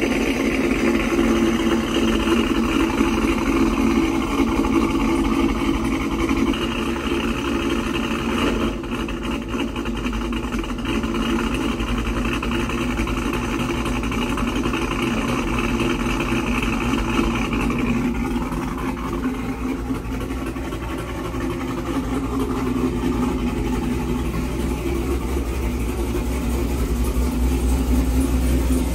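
Cammed GMC Sierra pickup's engine idling steadily.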